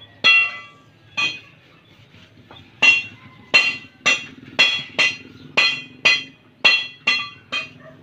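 Ringing metallic strikes: two spaced blows, then from about three seconds in a steady run of about two blows a second.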